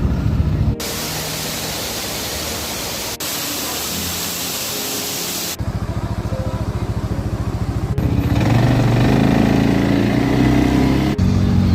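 An off-road vehicle's engine running, heard in short edited shots with sudden cuts between them. A steady hiss without an engine note fills the first few seconds before the engine takes over.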